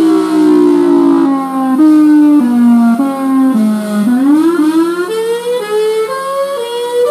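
Federal Signal Thunderbolt 1003 rotating-horn warning siren sounding. Its pitch slides down in steps for about four seconds, then climbs back up, as in a wail cycle, over a steady low hum.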